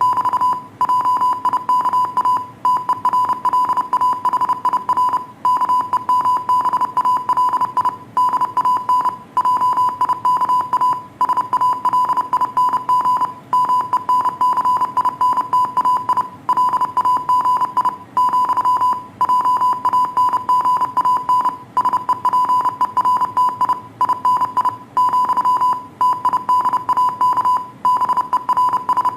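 Morse code sent as a single-pitched beep, keyed on and off rapidly in dots and dashes, with short pauses between letter groups.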